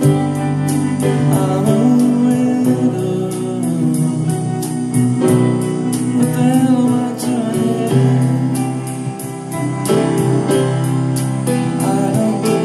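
Background music: a song with a sung vocal over a steady beat.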